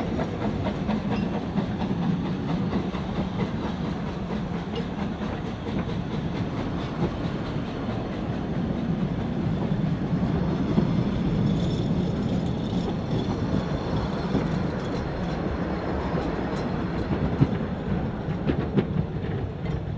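A train of 2 ft narrow-gauge passenger carriages rolling steadily past, with a rumble from the wheels and a scatter of faint clicks, one sharper click about 17 seconds in.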